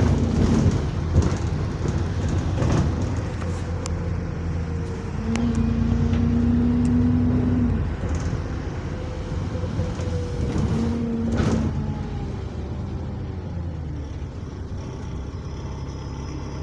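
Diesel bus engine and drivetrain running under way, heard from inside the saloon. A steady low rumble with a whine comes and goes three times, and there are a few knocks and rattles; the bus has a turbo leak.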